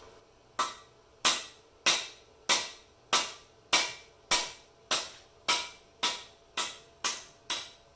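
A hammer strikes a cam bearing driver tool 13 times at a steady pace of a little under two blows a second, each a sharp metallic clank with a brief ring. The blows drive the number four cam bearing through its bore in a small-block Chevy 305 block.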